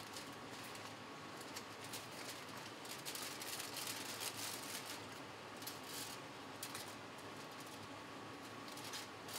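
Aluminum foil crinkling and rustling in irregular crackles as it is folded and pressed by hand, over a steady hiss.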